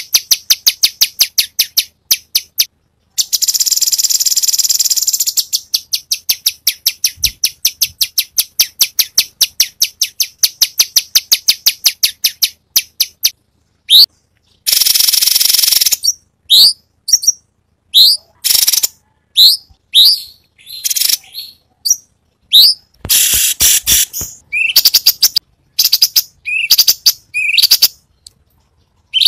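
Cucak cungkok songbird singing loudly. It starts with a fast run of sharp, high chips broken by a buzzy trill. A second long trill follows past the middle, then a string of separate upward-sweeping whistled notes.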